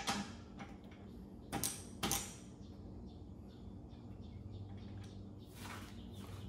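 A few light clicks and knocks of hands and tools working at the outboard's oil drain plug, two of them sharper about a second and a half in, over a faint steady low hum.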